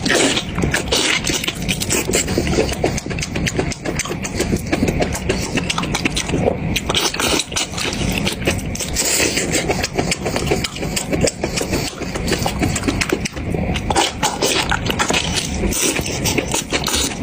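Close-miked eating sounds: a continuous run of chewing, smacking and crackling mouth noises.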